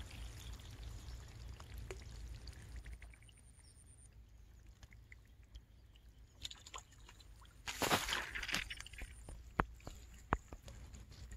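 A hooked fish splashing at the water's surface as it is pulled in on a fishing rod, one short loud splash about eight seconds in, followed by a few sharp clicks. A low rumble runs underneath.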